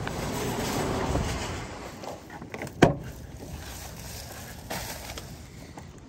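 Rustling and handling noise of a plastic grocery bag being carried and set into a truck, with one sharp click a little under three seconds in and a softer one near the end.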